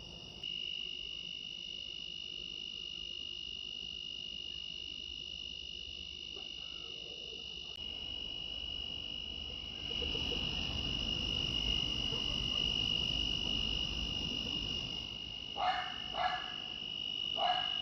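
Evening chorus of crickets chirring steadily at a high pitch, with a low rushing noise through the middle and three short frog calls near the end.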